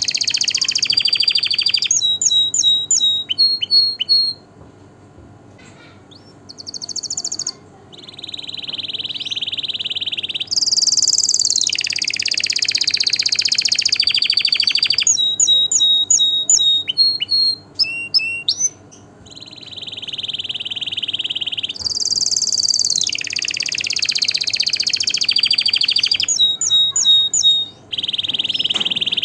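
Domestic canary singing: long, fast, high trills alternate with runs of sharp, separate chirps. There is a pause of a few seconds about five seconds in and a brief one near the middle.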